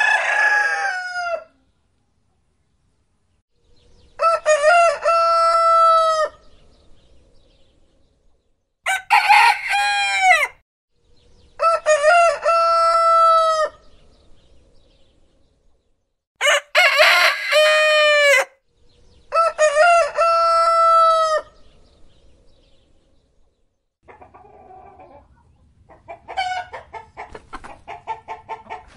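Rooster crowing: a series of full cock-a-doodle-doo crows, five of them, each about two seconds long and separated by short pauses, after the tail of one more at the start. Near the end come quieter, rapid clucking calls.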